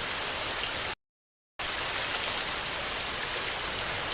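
Steady rain falling: a dense, even hiss flecked with small drop ticks. The sound cuts out completely for about half a second about a second in, then comes back unchanged.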